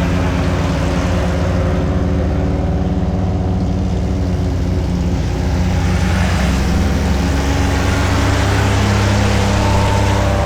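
Suzuki Jimny engine running steadily as the 4x4 drives off-road, getting louder about six seconds in as it pulls harder.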